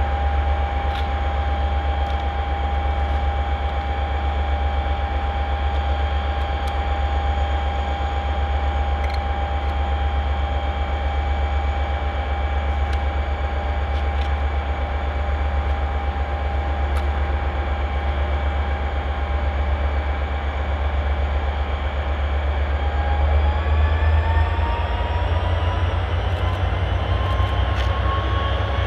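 Class 57 diesel locomotive's EMD two-stroke V12 engine running steadily at standstill, a deep rumble with a steady whine over it. About three-quarters of the way through the engine speed rises and its pitch climbs steadily.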